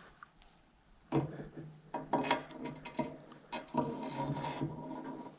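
Steel steering stem of a Yamaha RD50 being pushed up into the frame's head tube through the steering bearings: metal scraping and rubbing in several short strokes, starting about a second in.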